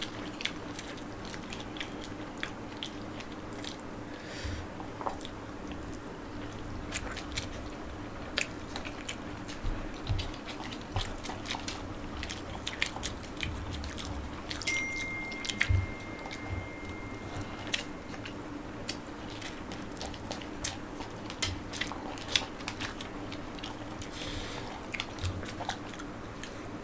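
Close-up chewing and biting sounds of people eating spicy Maggi instant noodles, with many small scattered clicks over a steady low hum.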